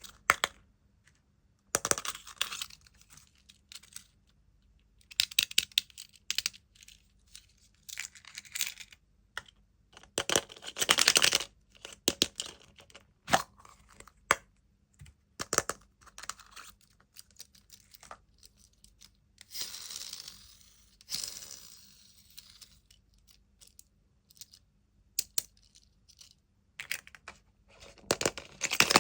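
Wrapper packaging crinkled and torn by hand in irregular short bursts, with small clicks from handling, and a longer stretch of rustling about twenty seconds in.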